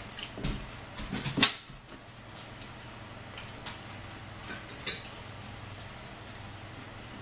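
Eating at the table: chewing and mouth smacks with a metal fork clicking on a plate, busiest in the first second and a half, then a few scattered clicks over a low steady hum.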